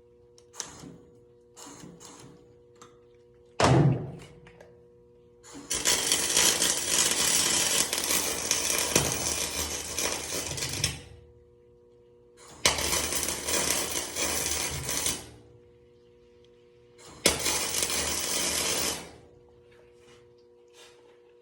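MIG welder arc on aluminum, a few short sputtering starts and a sharp pop, then three bursts of steady crackle lasting about five, two and a half and two seconds. A steady hum from the machine runs underneath.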